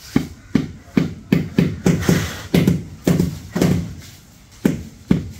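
Rubber mallet tapping a vitrified floor tile down into its bed of wet cement mortar: a dozen or so dull knocks, two to three a second, with a short pause a little past the middle. The rubber head beds the tile without cracking it, as an iron hammer would.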